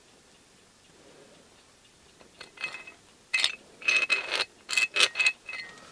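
Metal vernier caliper sliding and clinking against the steel jaws of a pickle fork as its opening is measured. It is quiet at first, then from about two and a half seconds there is a run of short metallic clicks and scrapes, each with a light ringing note.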